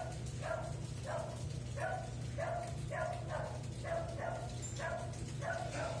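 Consul 13 kg top-load washing machine running with a steady low hum, overlaid by a regular pulsing sound that repeats about one and a half times a second.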